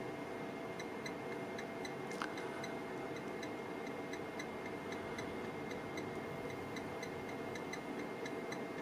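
Amplifier dyno bench running a 40 Hz power test into a 4-ohm load: a steady low hum, with faint regular ticking at about four a second that starts about two seconds in as the output power climbs.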